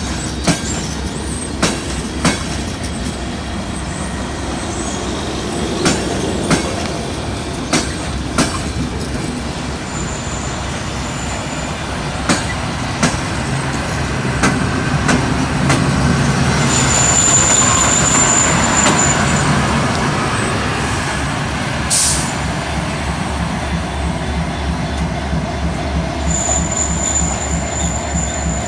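Train wheels clicking over rail joints as passenger coaches roll past. Then a CFR class 40 electric locomotive runs along the platform, its running gear and traction equipment giving a steady hum. A high wheel squeal comes twice in the second half, and there is one sharp crack a little past the three-quarter mark.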